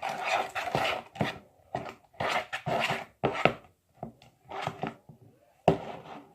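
Spoon stirring slime in a bowl: irregular scraping strokes, about one or two a second, with sharp clicks of the spoon against the bowl.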